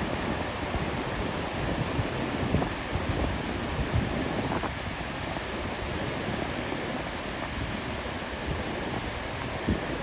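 Ocean surf washing steadily, with wind buffeting the microphone in gusts.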